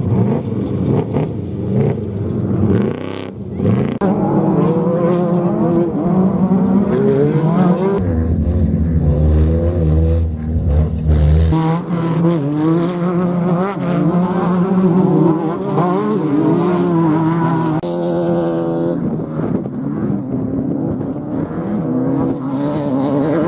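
Off-road race vehicle engines revving hard, pitch climbing and dropping repeatedly as they accelerate and shift. A heavy low rumble takes over for about three seconds in the middle.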